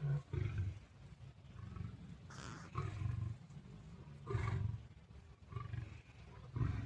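A lion and a tiger growling at each other: low, rumbling big-cat growls in short repeated bursts, with a few harsher snarls about two and a half seconds in, four and a half seconds in and near the end.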